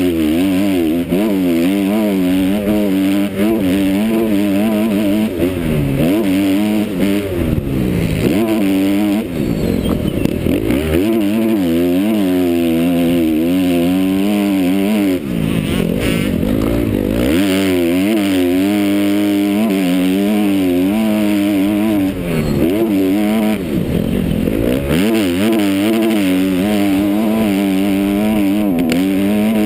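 Motocross bike's engine heard from the rider's onboard camera, revving hard and repeatedly rising and falling in pitch. The throttle shuts off briefly several times, at corners and gear changes.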